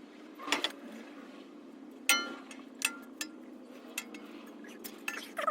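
Scattered metal clinks and knocks as a steel exhaust pipe is handled and fitted into place, with one sharper ringing clank about two seconds in.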